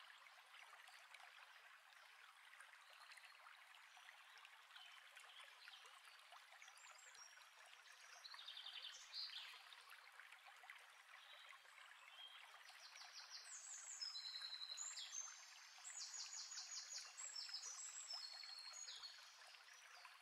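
Faint running water of a stream, with birds singing short, high, rapid trills, a few about nine seconds in and many more in the second half.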